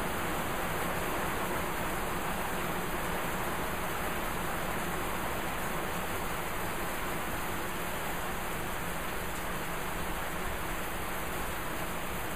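Heavy rain pouring down steadily, an even hiss that holds the same level throughout.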